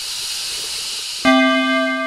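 Outro sound logo: a steady airy whoosh, then about a second in a single bright bell-like note that strikes suddenly and rings on, slowly fading.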